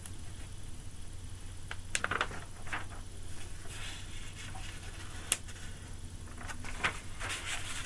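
Room tone: a low steady hum with a few scattered faint clicks and rustles, the sharpest about two seconds in and again past the five-second mark.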